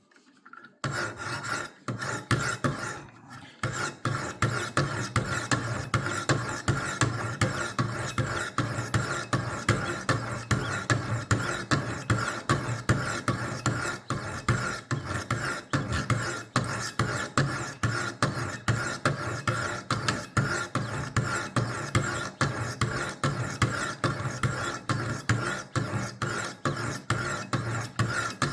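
Diamond sharpening stones of a Wicked Edge WE60 sharpener rasping in rhythmic hand strokes along a clamped, blunt table-knife blade, about two to three strokes a second, with a short pause a few seconds in. This is the coarse stage of raising a burr on an edge that had none.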